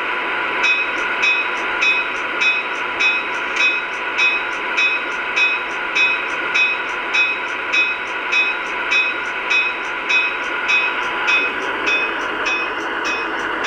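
MTH DCS sound system in an HO-scale Milwaukee Road Little Joe E20 electric locomotive model, through its small onboard speaker: a locomotive bell ringing steadily, a bit under two strokes a second, over a constant electric-locomotive hum; the bell stops near the end.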